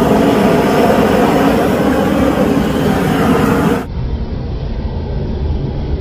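LPG-fed gas torch burning with a steady rushing flame noise. About four seconds in it turns quieter and duller.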